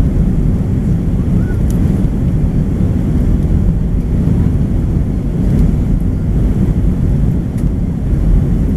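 Steady low rumble of an Airbus A320's engines and airflow, heard inside the passenger cabin while the airliner climbs out after takeoff.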